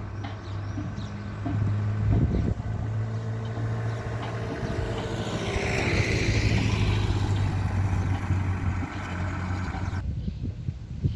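A motor vehicle engine running steadily with a low hum, and a vehicle passing by about halfway through. The hum drops away near the end.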